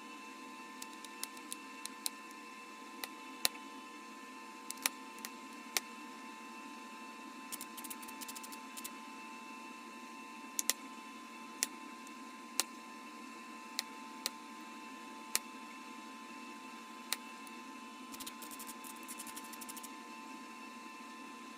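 Bottle glass being flintknapped: sharp irregular clicks as flakes snap off, with two short runs of quick ticking, over a steady low hum.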